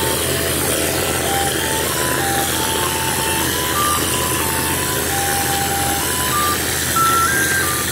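Steady rushing noise and hum of a plaster spraying machine, with cork-lime insulating plaster blown through a hose nozzle onto a stone wall. Over it runs a simple tune of single clear notes stepping up and down.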